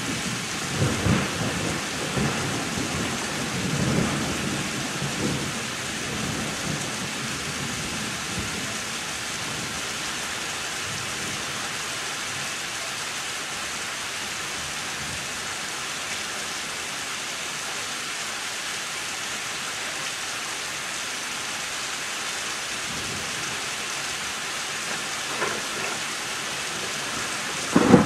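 Heavy thunderstorm rain falling steadily, with a rumble of thunder in the first few seconds that dies away.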